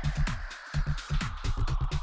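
Background electronic dance music with a fast, steady beat.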